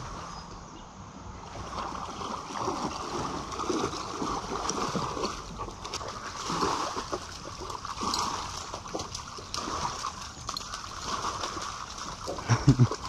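A rottweiler splashing about in shallow river water, with irregular sloshing throughout. Near the end there is a short run of loud thumps.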